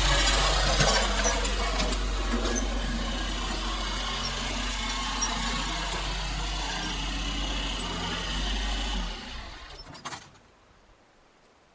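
Yanmar B22 mini excavator's diesel engine running at higher revs than idle, played back at double speed; about nine seconds in it dies away quickly, followed by a single click.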